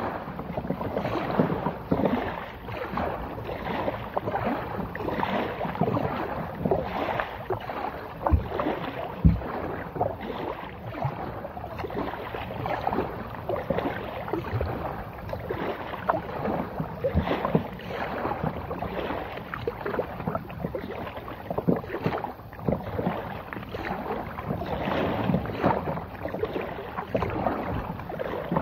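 Plastic kayak hull pushing through reeds and lily pads: stems brushing and scraping along the hull in a steady, irregular crackle, with two low thumps about eight and nine seconds in.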